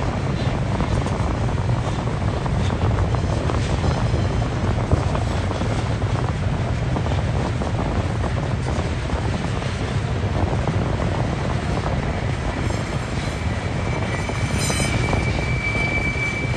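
Container wagons of a diesel-hauled freight train rolling past, a steady low rumble with faint clatter of wheels on rail. A thin high-pitched squeal rises briefly near the end.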